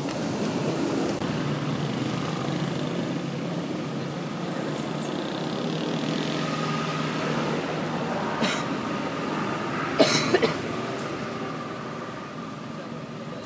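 A motor vehicle's engine running steadily nearby, with a few short sharp knocks about ten seconds in.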